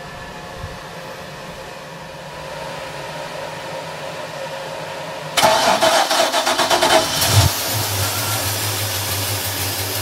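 An electric bilge blower hums steadily, then about five seconds in the starter cranks the Mercruiser 350 MAG MPI V8 for about two seconds. The engine catches and settles into a steady idle, the way it should run with its new idle air control valve.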